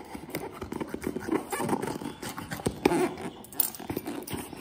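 Scissors cutting through packing tape on a cardboard box, then the cardboard flaps being pulled and torn open: a run of irregular scrapes, rips and small knocks.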